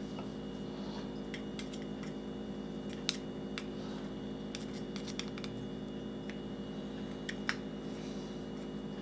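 Small sharp metallic clicks and ticks, scattered and irregular, as a screwdriver drives the screw that holds a new packing onto a faucet's cold-water stem, over a steady low hum.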